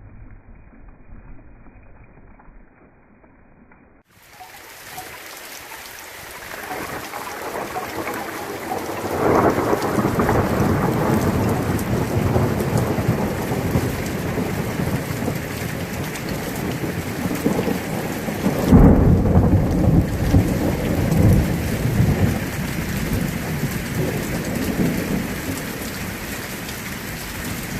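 Heavy rain pouring during a thunderstorm, with thunder rolling through it. After a quieter, muffled start, the rain sets in about four seconds in; one long rumble of thunder comes about a third of the way through, and a louder, sharper-starting crack and roll about two-thirds through.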